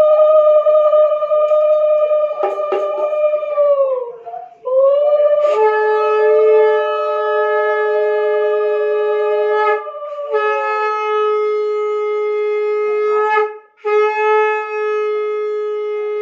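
Shankha conch shells blown in long held blasts. One conch sounds first; a second, lower-pitched one joins about five seconds in, and the two sound together, each breaking off briefly for breath.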